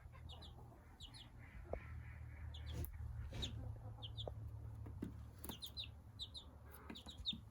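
A young Australorp, Light Brahma and Silkie bantam cross chick cheeping: short high peeps, often in pairs, about once a second, with a few light taps and a steady low hum underneath.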